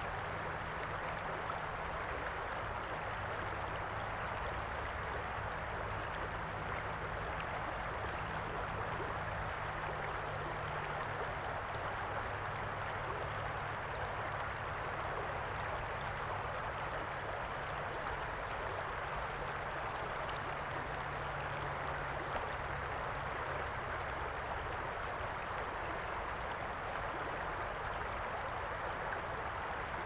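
Shallow river water flowing steadily over a stony bed.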